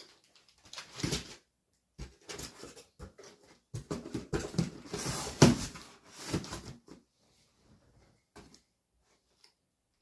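Irregular rustling and crinkling of meal-kit packaging being handled, with a few knocks, busiest in the middle and fading out near the end.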